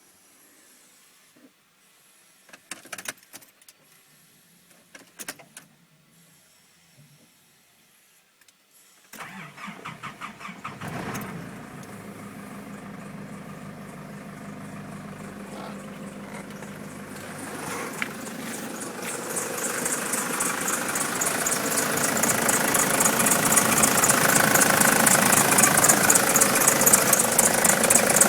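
A few clicks, then the Nissan Patrol's 3-litre four-cylinder turbo diesel cranks for about two seconds and catches about nine seconds in, settling to idle. A rhythmic high-pitched squeak builds over the idle and grows louder toward the end; this is the squeaky noise the owner is trying to trace.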